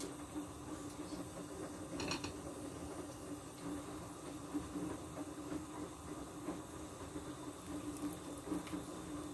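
Pot of chicken soup bubbling at a boil, a faint steady bubbling over a low hum, with a thin stream of liquid trickling into the pot near the end. A brief clink about two seconds in.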